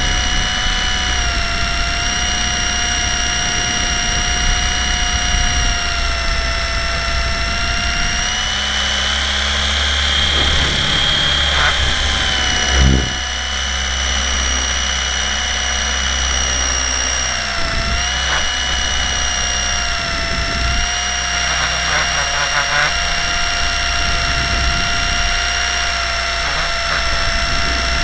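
Blade 120 SR micro RC helicopter's electric motors and drive gears whining steadily, heard from a camera on board in flight, the pitch dipping briefly now and then as the throttle changes. A short low thump comes about halfway through.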